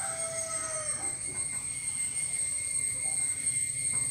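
White chalk scratching lines down a blackboard over a steady background hiss, with a faint high squeak in the first second.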